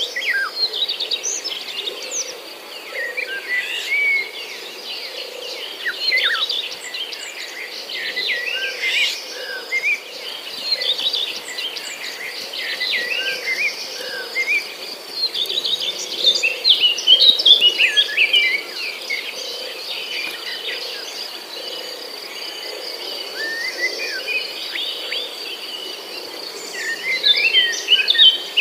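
Many small birds chirping in quick, short calls that come in busy clusters and thin out between them, over a continuous high insect trill.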